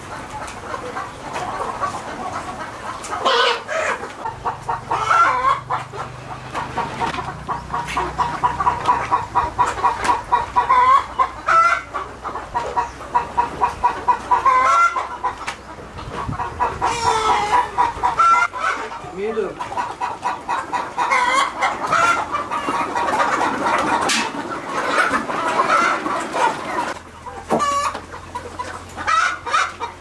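A large flock of chickens clucking continuously, many birds calling over one another in quick repeated clucks.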